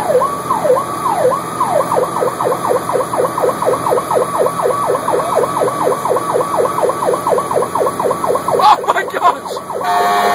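Emergency vehicle's electronic siren heard from inside the cab, sweeping down in pitch about twice a second, then switching about two seconds in to a fast yelp of about five sweeps a second. Near the end the sweeping breaks off with a short burst and a steady horn-like tone takes over.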